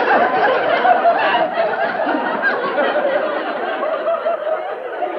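Audience laughter: many people laughing together, steadily, easing off a little toward the end.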